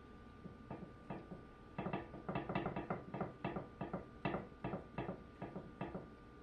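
A utensil scraping and knocking repeatedly against the tub of melted chocolate frosting, about two to three quick knocks a second, working the frosting out over the cake.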